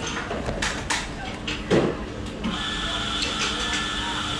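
Espresso machine steam wand starting up: a steady high hiss with a faint whistle-like tone sets in about halfway through, after a few light clicks and knocks.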